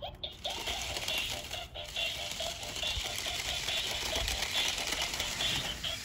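Small battery-powered RC stunt car running, its electric motors whirring with a wavering pitch while its wheels rattle over loose gravel.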